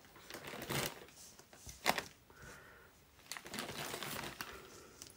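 Plastic vacuum-storage bag crinkling and wool locks rustling as hands pull sections of fleece out of the bag. Soft scattered rustles, a sharper crackle about two seconds in, then denser rustling near the end.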